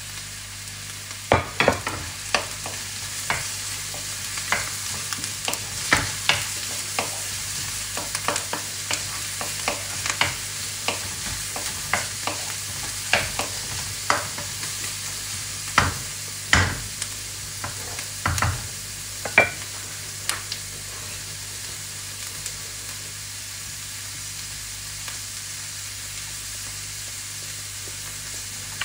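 Chopped onion, garlic and ginger strips sizzling in hot oil in a wok, while a wooden spoon stirs them, knocking and scraping against the pan over the first twenty seconds or so. After that the sizzling goes on alone.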